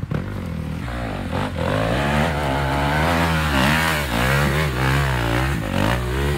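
Dirt bike engine revving hard in quick rising and falling surges as it climbs a steep slope. The revs drop back to a lower, steady run right at the end.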